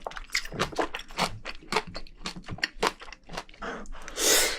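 Close-miked chewing and crunching of spicy braised seafood, a quick run of wet, crackly bites. About four seconds in comes a louder, brief rushing noise.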